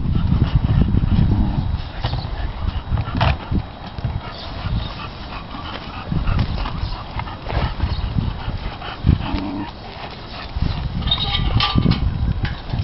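An English bulldog and a Shiba Inu playing, with short dog noises over a low rumble that comes and goes. A brief pitched sound comes about nine seconds in, and a cluster of higher sounds near the end.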